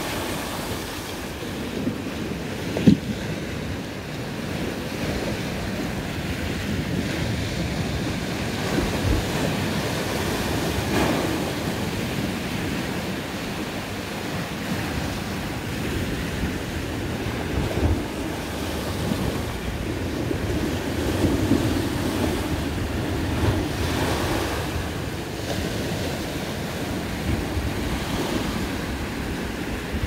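Sea waves breaking against and washing up a concrete slipway, the surf swelling and easing every few seconds. A single sharp thump about three seconds in.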